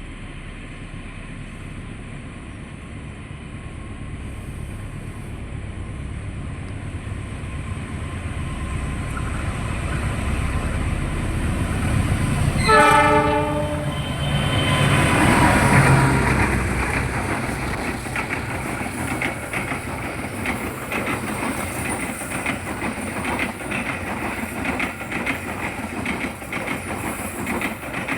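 A train approaches with a low rumble that grows steadily louder. About halfway through it sounds its horn in one short blast. It then passes close, its wheels clicking rhythmically over the rail joints as the carriages go by.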